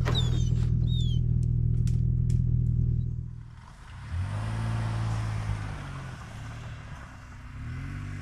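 Vehicle engine idling steadily, with a few short high chirps in the first second or so. After about three seconds it pulls away and accelerates twice, the engine note rising and falling each time.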